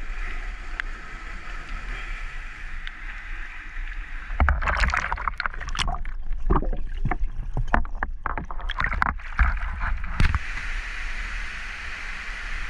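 Stream water rushing and splashing into a pool in a rocky gorge. About four seconds in the sound goes under water: muffled, with bubbling clicks and low thumps for about six seconds, then it comes back up into the steady rush of the water.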